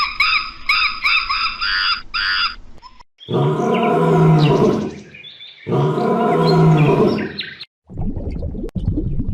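Wild animal calls: a quick run of short, repeated chirping calls, then two long, deep, loud calls of about two seconds each, followed by a rougher, noisy stretch near the end.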